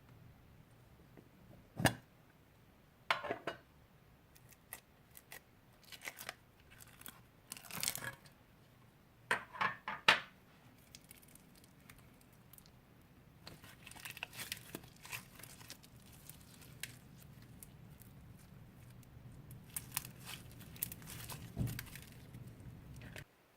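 Old slime being mixed and worked: irregular sticky clicks, pops and tearing crackles, with the loudest pops about two and ten seconds in.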